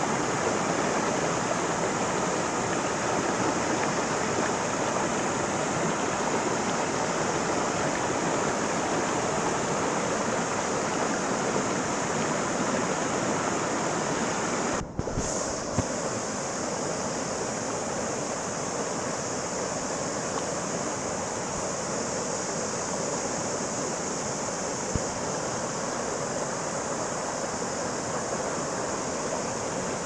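Shallow rocky mountain stream rushing and splashing over stones, a steady noise of flowing water. It briefly drops out about halfway through, then carries on.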